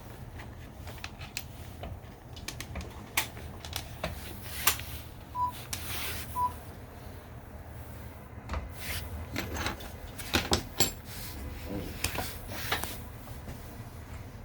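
Scattered clicks, clanks and knocks of metal tools and parts being handled, over a low steady hum, with two short beeps about five and six seconds in.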